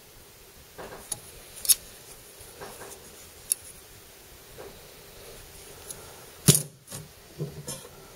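Old rusty steel scissors being handled, opened and closed: a few scattered sharp metal clicks, the loudest near the end, followed by a short cluster of lighter clicks.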